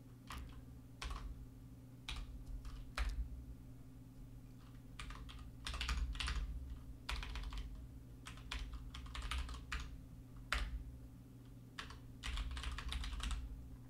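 Computer keyboard typing in short, scattered bursts of keystrokes, over a faint steady low hum.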